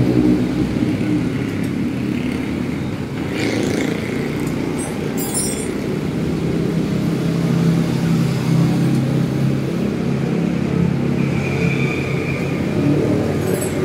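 A motor engine running steadily, a low even hum through the whole stretch, with a few brief clicks and crackles around three to five seconds in.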